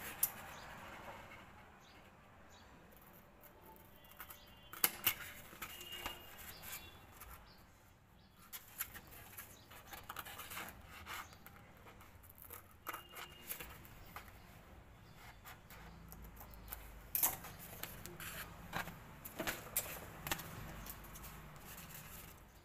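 Scissors snipping through glitter paper to cut small strips, with the sheet rustling as it is handled: irregular crisp snips and clicks.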